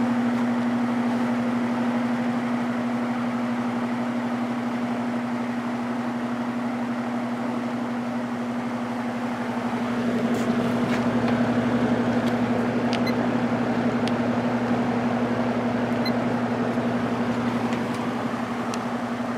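An early-1960s GE F15W13 box fan running on low speed: a steady electric-motor hum under the rush of air from the blades. It gets a little louder about halfway through, and a few faint ticks come in the second half.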